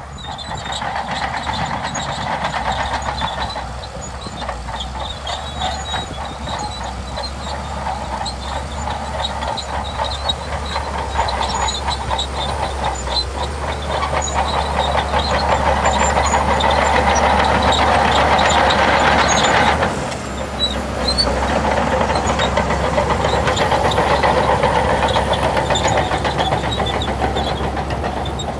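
Shantui DH17C2 bulldozer at work: its diesel engine running steadily under a fast rattle, growing louder toward the middle, dropping sharply about twenty seconds in, then picking up again.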